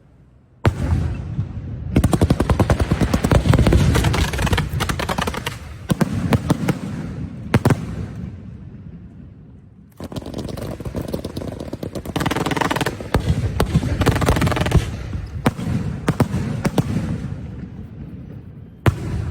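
Firecrackers and fireworks going off in rapid, dense crackling with louder bangs mixed in. A first run starts about a second in and fades before ten seconds; a second run starts sharply at ten seconds and dies away near the end, with one more sharp bang just before it ends.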